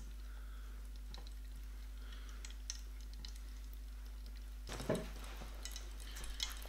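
A finger stirring shallow coloured water in a glass baking dish, faint and soft over a steady low hum, with scattered light ticks. About five seconds in there is one brief louder sound, followed by a few light clicks.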